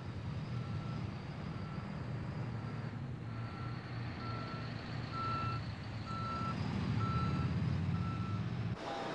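A heavy vehicle's reversing alarm beeping steadily, about once a second, over the low rumble of its running engine. Both cut off abruptly near the end.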